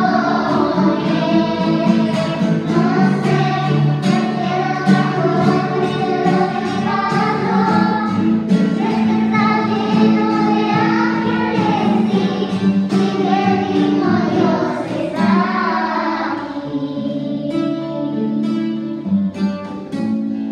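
Music: a song sung by voices over guitar. The singing stops about three-quarters of the way through, leaving the instrumental accompaniment.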